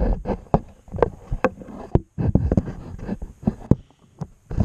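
A series of irregular thumps and knocks, some loud and some faint.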